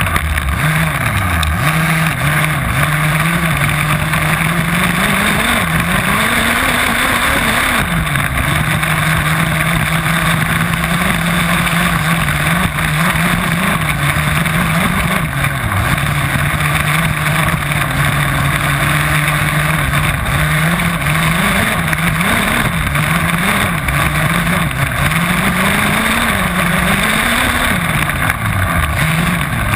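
Small gasoline two-stroke engine of an HPI Baja 5B 1/5-scale RC buggy, heard close from a camera mounted on the car, revving up and down with the throttle as it is driven hard. The pitch holds steady for several seconds in the middle, with short dips about halfway through and near the end, over a steady hiss.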